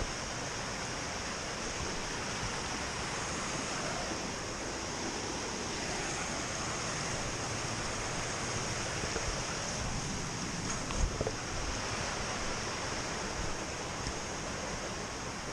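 Steady rush of flowing creek water, with a brief low thump about eleven seconds in.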